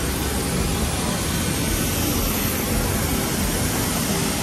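Jet airliner engines running on the apron, a steady roar with a faint high whine.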